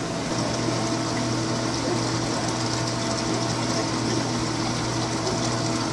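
Aquarium pump humming steadily, with a hiss of moving water; the hum comes up about a third of a second in.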